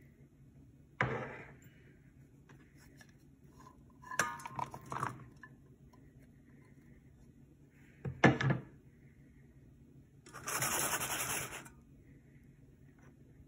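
Food being tipped into a stainless steel bowl: separate knocks and clatters, the metal ringing briefly after a rattling cluster, a loud double knock, then about a second of rustling hiss.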